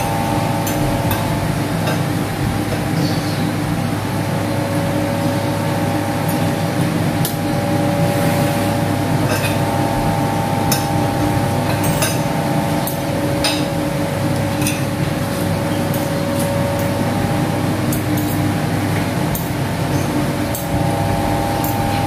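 Metal spoons and forks clinking and scraping against ceramic plates and bowls during a meal, in short irregular taps. A steady mechanical hum with several held tones runs underneath.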